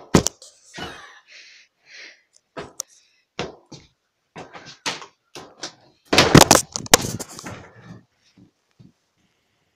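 A large light ball being kicked up, a string of short knocks; about six seconds in a loud jumble of knocks and clatter as the ball hits the filming phone and knocks it over.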